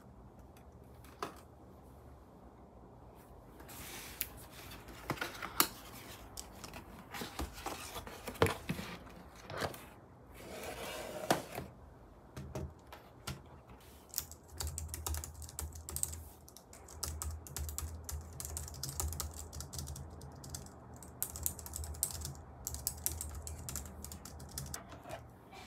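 A cardboard keyboard box being opened and handled, with scattered sharp taps and a sliding rustle as the keyboard comes out. About halfway through, fast continuous typing starts on a Logitech MX Keys Mini for Mac's low-profile scissor-switch keys.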